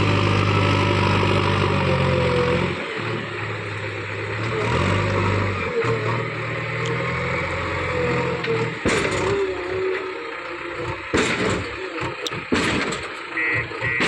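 JCB 3DX backhoe loader's diesel engine working under load, its pitch rising and falling as the machine digs and lifts, then easing off while several loud knocks ring out in the second half.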